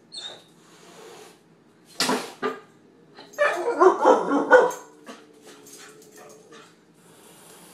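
A puppy barking and yipping excitedly at a cat: one sharp bark about two seconds in, then a rapid flurry of barks and yips from about three to nearly five seconds in, with a few fainter yips after.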